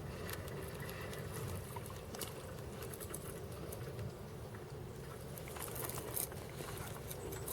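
Quiet outdoor background: a low steady rumble with scattered small clicks and patters.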